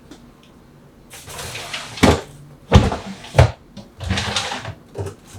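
Rummaging through a refrigerator: rustling of food packages, then three sharp thumps about two seconds in as containers or a crisper drawer are knocked or moved, then more rustling.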